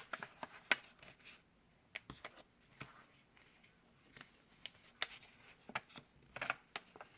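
A sheet of printer paper being handled, folded and creased by hand: faint, irregular crackles, rustles and taps.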